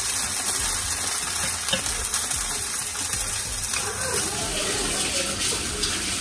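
Bánh xèo (Vietnamese rice-flour crepe) sizzling steadily in hot oil in a frying pan.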